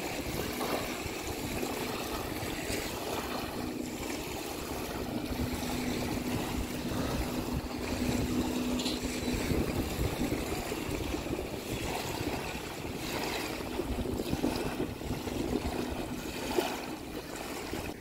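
Wind buffeting the microphone over water lapping at a beach, with a steady low drone that swells in the middle.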